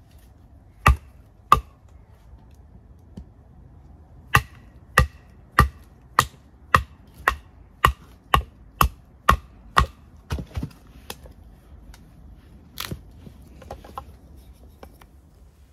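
Batoning: a wooden baton knocking on the spine of a knife driven into dry wood, splitting it into thin kindling. Two strikes, then an even run of about a dozen strikes roughly two a second, then a few scattered lighter knocks.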